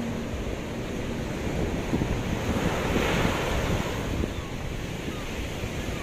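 Small sea waves breaking and washing up a sandy beach, the foam hissing over the sand, loudest as a wave breaks about three seconds in. Wind buffets the microphone.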